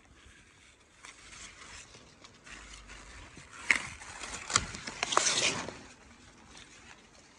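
Large broadleaf mustard green leaves rustling and being snapped off their stalks by hand, with a few sharp crisp snaps in the middle.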